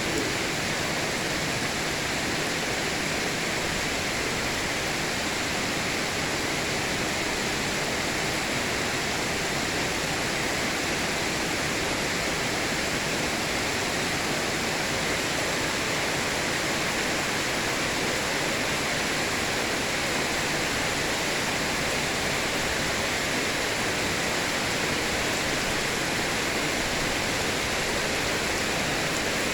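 Heavy rain falling steadily, a dense even hiss with no thunder claps.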